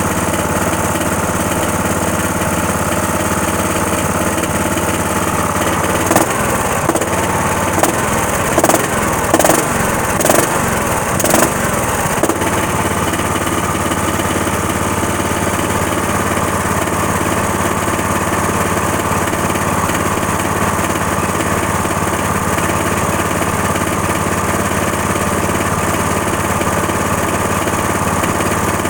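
Cub Cadet's engine running steadily, stumbling with several uneven pops and knocks for a few seconds about six seconds in before smoothing out again; the motor is a bad one.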